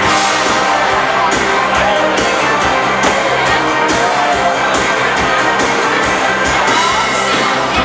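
Live dance band playing an upbeat bugg tune with a steady beat.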